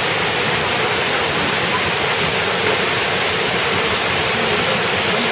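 Waterfall: falling water making a loud, steady, even rush.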